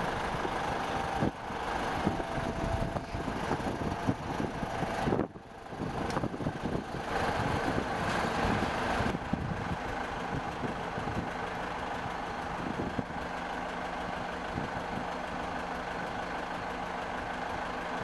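Heavy diesel machinery engine running steadily. The sound breaks off and changes abruptly a few times, with clear cuts at about a second in and about five seconds in.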